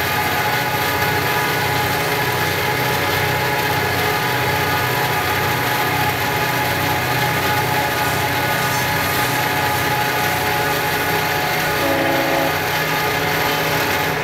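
Diesel locomotive engines of a Florida East Coast Railway freight train running steadily under power, heard while pacing alongside it. The sound is a loud, even drone with a low throb. A brief extra tone joins about twelve seconds in.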